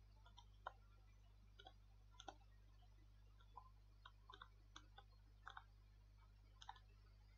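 Near silence with faint, irregular clicks and taps of a stylus on the writing surface as words are handwritten, over a low steady hum.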